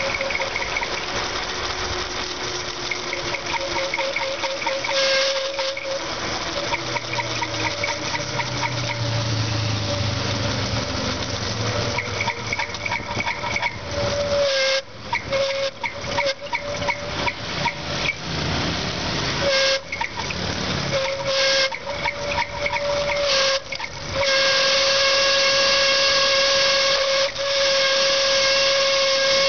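Bicycle ride through city traffic: a steady high-pitched whistling whine over road and traffic noise. The whine breaks up in the middle and is loudest and steadiest near the end.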